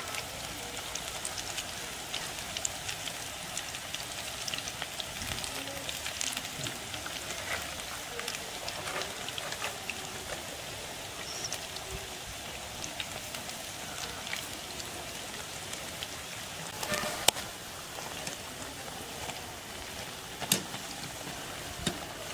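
Spinach pakoras deep-frying in hot oil: a steady sizzle full of small crackles. A couple of sharper clicks stand out in the second half.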